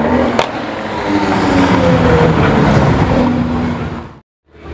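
Lamborghini Aventador SVJ's naturally aspirated V12 accelerating away, with a sharp crack about half a second in. The engine note then falls and fades as the car drives off, and the sound cuts out shortly before the end.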